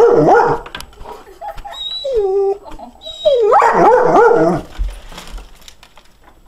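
Golden retriever whining and yelping in rapid, pitched, rising-and-falling cries, worked up over a cat outside the window. A loud bout at the start, a softer drawn-out whine about two seconds in, and another loud bout a little past three seconds.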